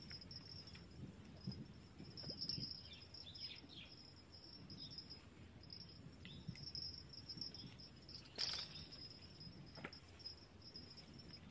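Faint, steady high-pitched insect trill that pulses throughout, with a few small chirps in the first few seconds and a single sharp click a little past the middle.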